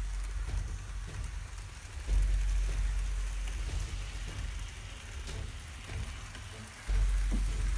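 N-scale model trains running on the layout: a steady hiss of small motors and wheels rolling on the track, with faint ticks. A low rumble cuts in sharply about two seconds in and again near the end.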